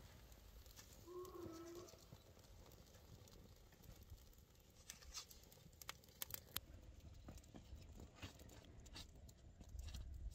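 Faint crackling and popping of a freshly lit teepee of split firewood and dry leaves catching alight, with one short call about a second in.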